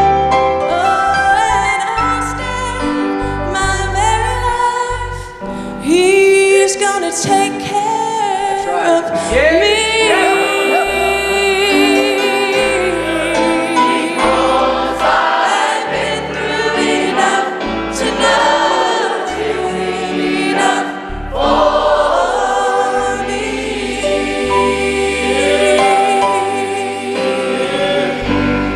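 Church choir singing a gospel song over instrumental accompaniment, with bass notes changing about once a second under the voices.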